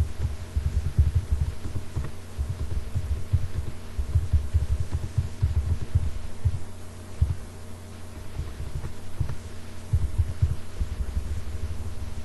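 Computer keyboard being typed on, picked up as irregular runs of dull low thumps with short pauses between bursts, over a steady electrical hum.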